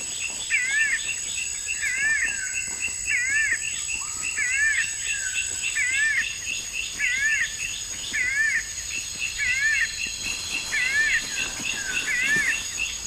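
A bird repeats a short, wavering call about once a second over a steady, high-pitched drone and rapid chirping of insects.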